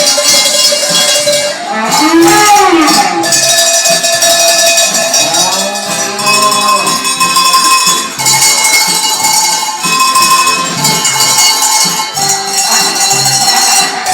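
A set of tuned Bavarian cowbells rung to play a melody, each bell ringing on after it is struck, with a regular low pulse underneath.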